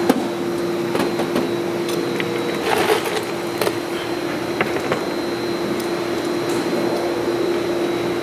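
Clecos being pushed into pre-drilled holes in aluminium sheet with cleco pliers: scattered light clicks and metallic taps over a steady mechanical hum.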